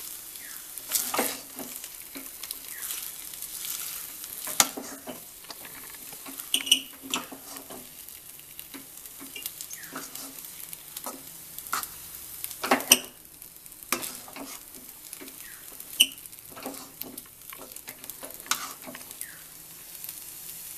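Spatula scraping and clinking against a kadai as thick rice-and-coconut batter is stirred continuously over the flame, with a steady faint sizzle underneath. Irregular scrapes, a few ringing clinks among them; the batter is being cooked down until it dries into a dough.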